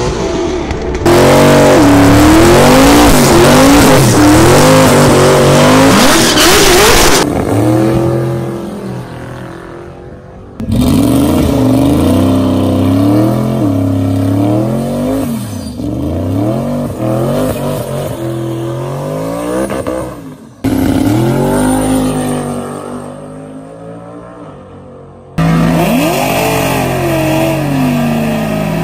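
A run of drag-strip clips of modified V8 Mustangs doing burnouts. Engines rev up and down over the noise of spinning rear tyres, cutting abruptly from one car to the next several times. The loudest stretch is a burnout from about a second in, lasting some six seconds. Among the cars are a twin-turbo Coyote-swapped Fox-body Mustang and, near the end, a Whipple-supercharged 2014 Shelby GT500.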